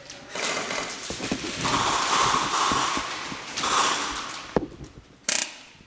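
A player breathing hard close to the microphone, with two long breaths, then a click and a short, sharp knock near the end.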